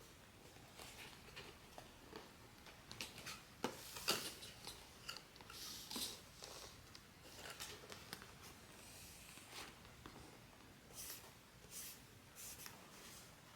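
Faint rustling, crinkling and clicking of blind-box packaging being handled and opened by hand, in short irregular bursts, loudest about four and six seconds in.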